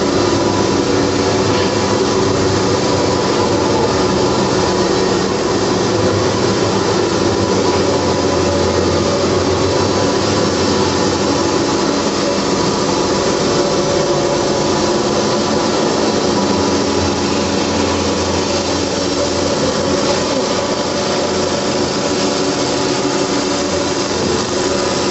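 Automatic computerized quilting machine running steadily, a continuous mechanical whir and rattle.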